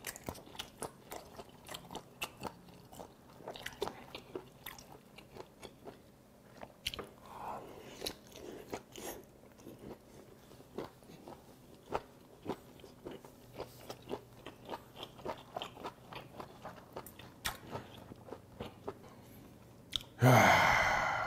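A person chewing steamed cuttlefish close to the microphone: a long run of quick, wet mouth clicks and chewing sounds. Near the end, a loud breathy exhale.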